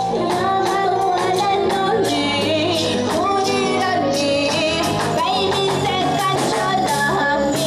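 A woman singing live into a handheld microphone over a band with electric guitar, keyboard and a steady beat, heard through the PA.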